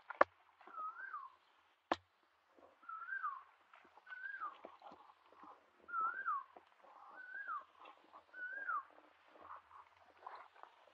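A bird calling over and over, a short whistled note that rises then falls, about six times at roughly one-second intervals, stopping near the end. Under it, faint wet squelching of hands working in mud, and two sharp clicks in the first two seconds, the loudest sounds here.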